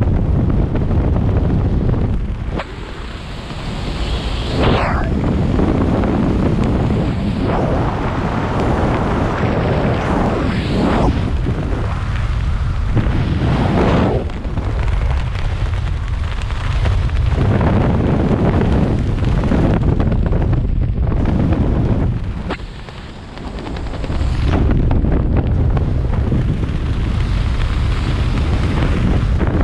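Wind rushing over a skydiver's camera microphone during a jump: a loud, continuous buffeting roar that rises and falls, easing briefly about three seconds in and again about twenty-three seconds in.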